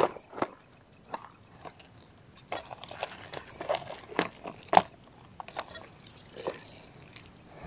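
Hands rummaging in a clear plastic tackle box and picking out a lure: irregular clicks, rattles and crackles of plastic, with the loudest knock about five seconds in.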